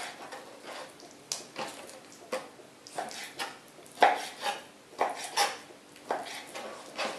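Chef's knife slicing raw dark chicken meat on a plastic cutting board: irregular knocks of the blade against the board, about two a second.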